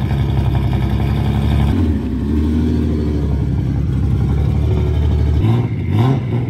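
Nissan Silvia S15 drift car's swapped 2JZ straight-six running at low revs as the car is driven out. The engine note drops about two seconds in, and near the end a few short throttle blips rise and fall as it pulls up to the trailer ramps.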